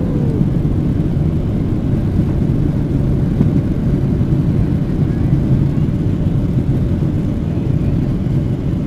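Boeing 737-700's CFM56-7B jet engines running in reverse thrust during the landing rollout, heard from inside the cabin by the wing as a loud, steady, low-pitched rush of noise that eases a little near the end.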